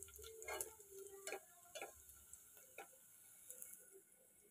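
A metal spoon scraping and clinking against a metal cooking pot as fried onions and cashews are scooped out. There are a few faint, separate clinks over a quiet background.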